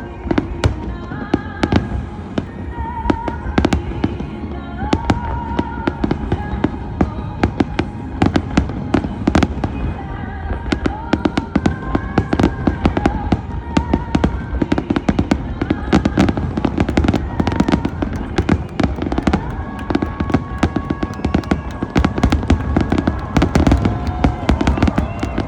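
Fireworks going off in a dense, continuous barrage of bangs and crackles, with music playing alongside.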